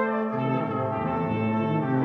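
Brass music: trumpets and trombones playing sustained chords that move from note to note.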